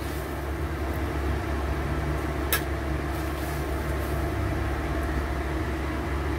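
Steady low hum throughout, while a metal ladle stirs soup in a stainless steel wok and clinks once against the pan about two and a half seconds in.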